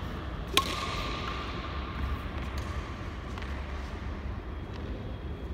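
A badminton racket strikes a shuttlecock with one sharp crack about half a second in, followed by a brief ringing tone. A few fainter ticks come later, over a steady low hum.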